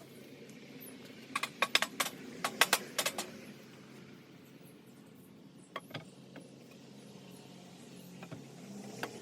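A quick run of sharp clicks and clinks, about a dozen in two seconds, then a few single clicks.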